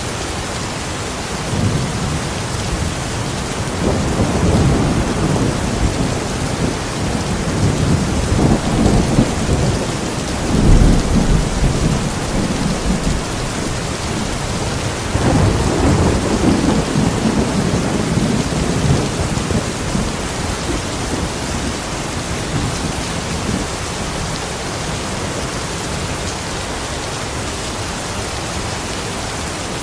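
Steady rain with rolling thunder rumbling in waves from a couple of seconds in, loudest around the middle, then dying away to rain alone for the last third.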